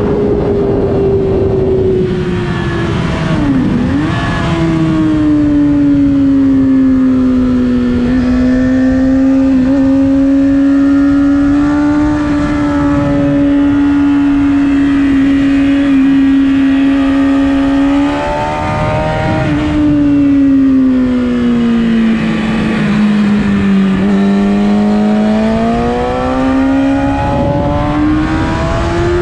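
Race-track vehicle engine running hard through a lap, its pitch rising and falling with throttle and gear changes. There is a sharp dip a few seconds in, a long stretch at steady pitch in the middle, then a drop, a slow sag and a climb again near the end.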